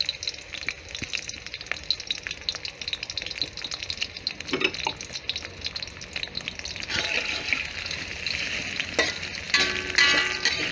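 Onion, ginger and garlic pieces sizzling in sesame seed oil in a wok, a steady crackle of many small pops that gets louder about seven seconds in.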